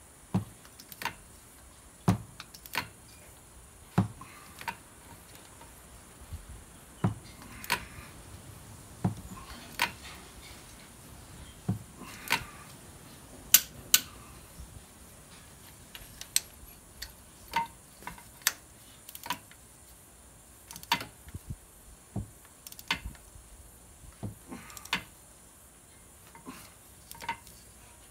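Ratchet wrench clicking in sharp single clicks and quick pairs, roughly one a second, as it is swung back and forth tightening cylinder head bolts.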